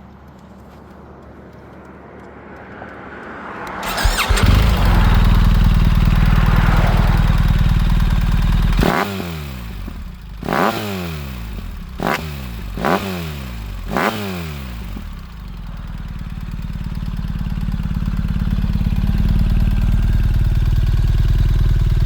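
Large motorcycle with double shotgun exhaust pipes: the engine catches about four seconds in and runs loud and steady, is blipped five times in quick succession with the pitch dropping back after each rev, then settles into a steady run that grows louder near the end.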